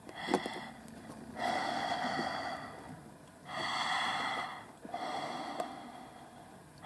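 Heavy, slow breathing: three long breaths of about a second each, with faint clicks just before them.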